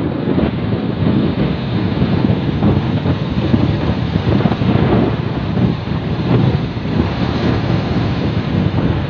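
Wind buffeting the microphone over the steady wash of heavy surf.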